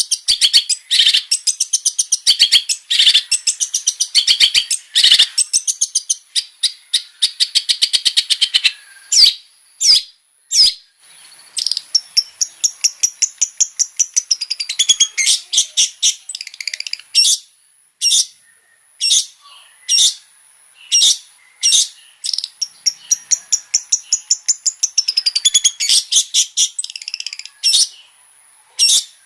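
Long-tailed shrike singing in full voice: fast, loud chattering runs of varied notes, broken around the middle by a series of single sharp notes about one a second before the chattering resumes.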